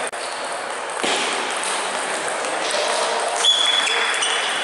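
Table tennis balls clicking off bats and tables over the busy din of a sports hall with several matches in play. About three and a half seconds in comes a sharp hit, followed by a short high ringing tone.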